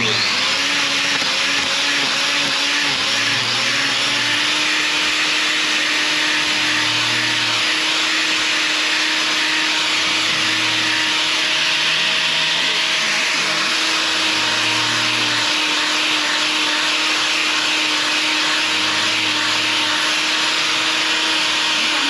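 Electric hoof-trimming grinder running steadily, grinding on a cow's claw, with a faint low pulse about every three and a half seconds underneath.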